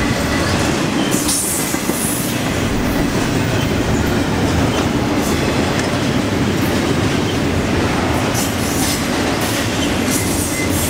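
Double-stack intermodal freight train passing close at speed: a loud, steady rumble of steel wheels on the rails, with scattered sharp clicks and clatter from the cars.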